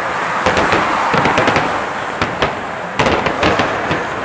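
Aerial fireworks in a finale barrage: rapid, overlapping bangs and pops, densest about half a second in and again around three seconds in, over a steady background noise.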